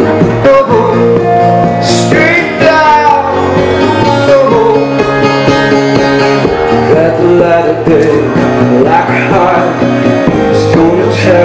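Live band music: acoustic guitars strummed in a steady, full-sounding song passage.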